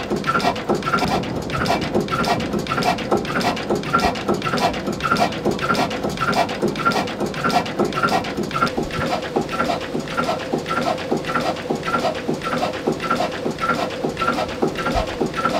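1928 Modaag D4 stationary diesel engine running steadily at slow speed: an even mechanical clatter of its moving parts, with a sharper knock recurring a little over twice a second.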